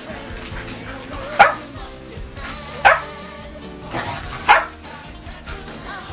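A dog barking sharply three times, about a second and a half apart, over background music.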